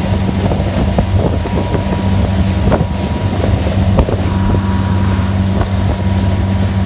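Motorboats running at planing speed: a steady low engine drone under rushing water and wind buffeting the microphone, with a few sharp knocks, the loudest about four seconds in.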